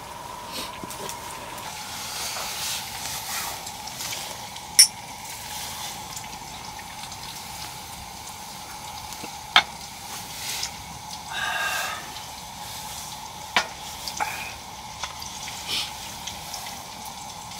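Food sizzling in a pan, with three sharp clicks of utensils, the loudest about five seconds in, and a brief squeak near the end, over a thin steady high tone.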